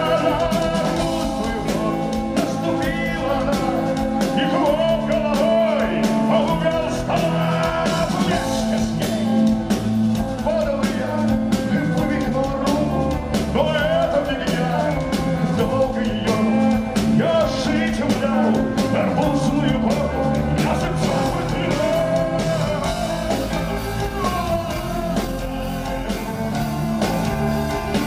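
Live punk-rock band playing: drums, electric guitar and bass, a violin, and a singer on the microphone.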